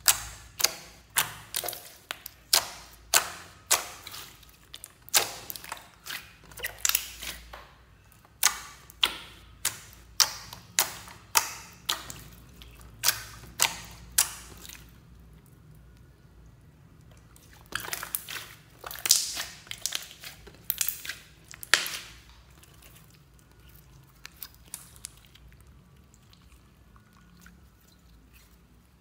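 Hands pressing and kneading a large clear glitter slime, giving a run of sharp, wet clicks and pops about two a second. About halfway through there is a pause, then another short run of pops, then only faint squishing near the end.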